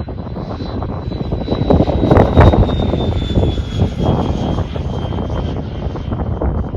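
A 120 mm electric ducted fan in an RC F-86 Sabre model jet flying overhead: a thin high whine that slowly drops in pitch, swelling loudest about two seconds in, over heavy wind rumble on the microphone.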